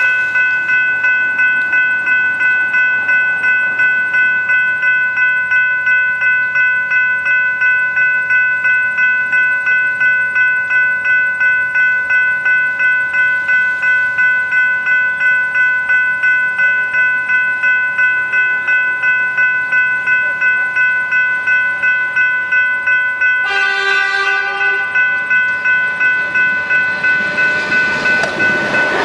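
General Signals Type 3 electronic level-crossing bells ringing continuously, with a steady even beat of about two strokes a second. About 24 s in, an approaching suburban electric train sounds a short horn blast, and the rumble of the train rises at the very end as it reaches the crossing.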